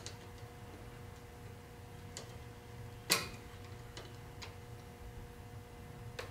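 Screwdriver tightening a wire terminal screw on a tractor voltage regulator: a few sharp metal clicks, the loudest about three seconds in, over a faint steady hum.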